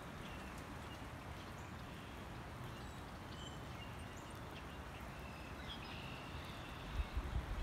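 Faint outdoor ambience with small birds chirping now and then in short, high calls, and a low rumble near the end.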